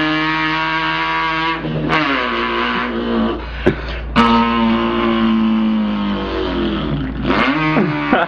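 A man's voice imitating an import car's engine revving: a loud, buzzy held tone whose pitch drops and climbs again several times, like an engine shifting through gears, with a few sharp clicks.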